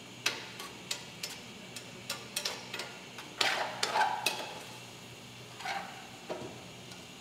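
A spoon stirring thick risotto in a stainless steel sauté pan: irregular scrapes and clicks of the spoon against the pan, a few of them ringing briefly.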